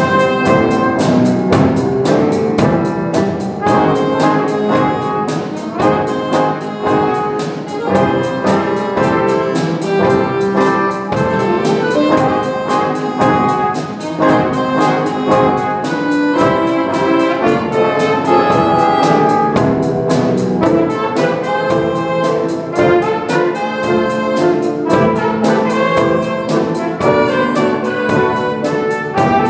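A children's variety ensemble playing jazz-style music led by brass, with trumpets and trombones over a steady beat.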